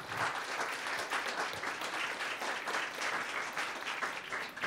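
Audience applauding: many people clapping.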